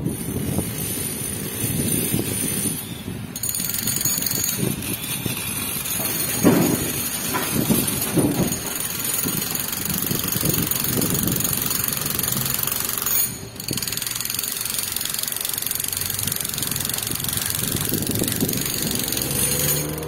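Road traffic on a busy road: cars going by one after another, their engines and tyres making a steady rumble that swells as each passes, with a brief drop about two-thirds of the way through.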